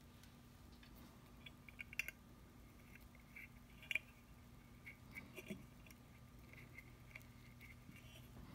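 Faint scattered clicks and light scratches of small parts being handled at a workbench, over a low steady hum; the sharpest clicks come about two and four seconds in.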